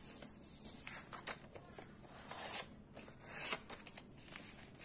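A sheet of paper rustling and crinkling as hands fold it in half and run along the crease on a tabletop, in a few soft rustles with small crackles.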